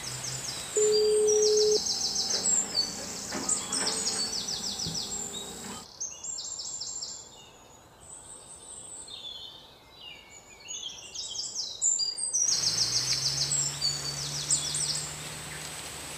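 Forest ambience of repeated trilling bird calls over a steady high whine. There is a short steady tone about a second in, and the ambience drops quieter for several seconds in the middle.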